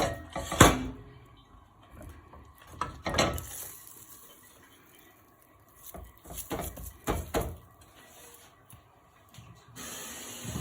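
Kitchenware clattering: several knocks of pots and utensils being handled, the loudest about half a second in, with a short hiss near the end.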